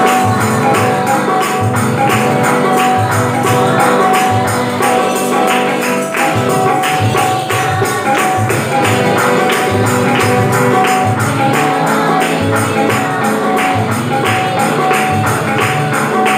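Devotional music with a steady, fast tambourine beat over held notes.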